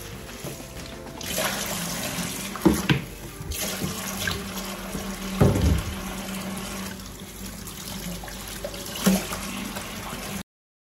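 Kitchen tap running into a stainless steel sink while a plastic washing-up basin is rinsed and water splashes. There are three knocks: one about a third of the way in, one halfway and one near the end. The sound cuts off suddenly just before the end.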